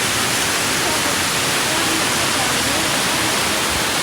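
Water pouring steadily down a tiered park fountain's step-downs, a loud even rush.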